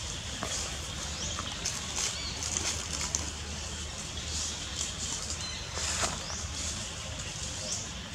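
Outdoor forest ambience: a steady background hiss and low hum, with scattered light rustling clicks and several short, high, sweeping chirps.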